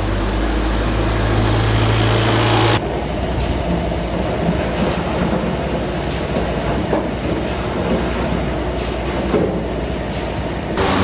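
Factory machinery running: a steady low hum for the first few seconds, then an abrupt change to a rougher, busier machine noise with scattered knocks.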